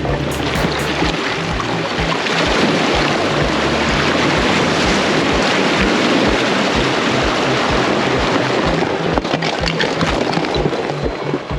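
Background music with a steady beat and a bass line, under a dense wash of noise.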